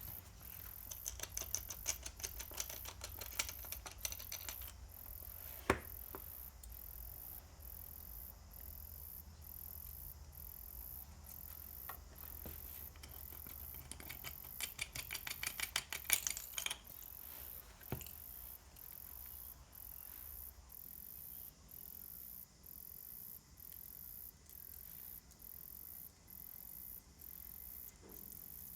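Ratchet wrench clicking in two quick runs while the small bolts holding the split wheel rim together are worked, with a couple of single metal knocks in between.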